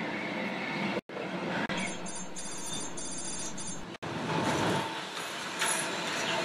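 Steam train hauled by an OKz32-2 steam locomotive approaching and running onto a steel truss bridge: a steady rumble that grows a little louder after about four seconds. A high rapid chirping comes in about two seconds in. The sound cuts out briefly twice, about a second in and about four seconds in.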